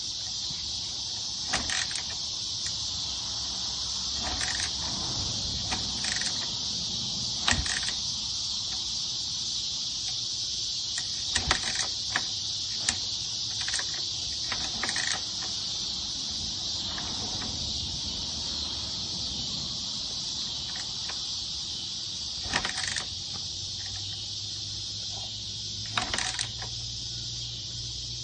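Steady high-pitched chirring of insects, with scattered sharp clicks and knocks every few seconds.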